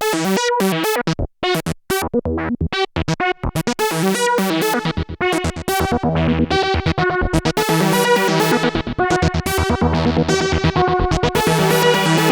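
Roland SE-02 analog synthesizer playing a fast run of short, bright notes, with lower bass notes coming in about four and a half seconds in.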